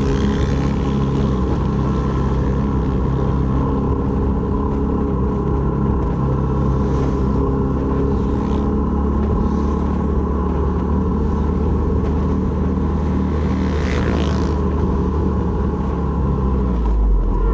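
Honda MSX125's single-cylinder four-stroke engine running at a steady, unchanging speed. A few brief rushing noises come about seven, eight and a half and fourteen seconds in.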